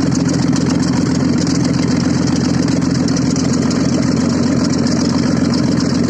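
Audi engine idling steadily with no exhaust system fitted, so it runs open from the manifold.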